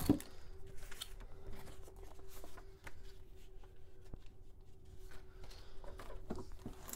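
Faint rustling and light clicks of hands handling a corrugated plastic hose and plastic-wrapped parts, over a faint steady hum.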